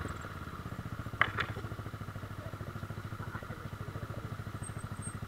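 Yamaha R15 V3's single-cylinder 155 cc four-stroke engine running at low revs, with an even, steady pulsing beat as the bike moves slowly over a rough dirt track. Two short sharp knocks come about a second in.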